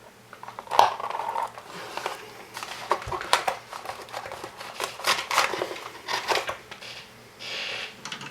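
Hands working on a cardboard-box robot chassis and its cables: scattered clicks, taps and rustling, with a short scraping hiss near the end.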